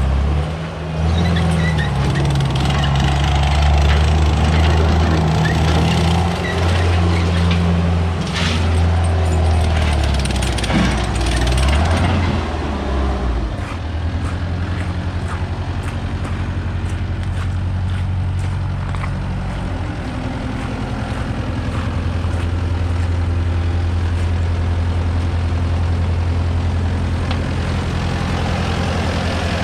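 ASV RT-60 tracked skid steer's diesel engine running, its speed shifting up and down for the first dozen seconds before it settles to a steady idle about 14 seconds in.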